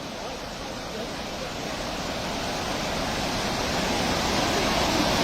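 Swollen flood river rushing, a steady noise of churning water that grows gradually louder.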